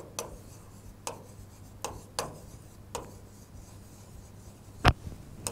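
Chalk writing on a chalkboard: a string of short taps and scrapes as each letter is written, with one louder knock near the end.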